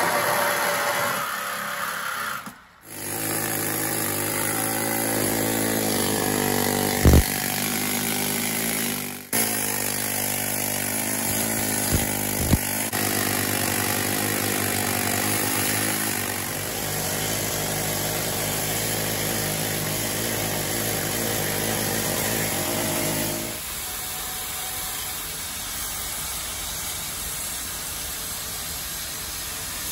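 Power tools working on rusted steel, in several cut-together takes: a corded reciprocating saw cutting through a steel underframe member at first, a pneumatic air hammer with a long chisel bit running steadily through the middle, and an angle grinder cutting steel angle near the end. A few sharp metal knocks come in the middle part.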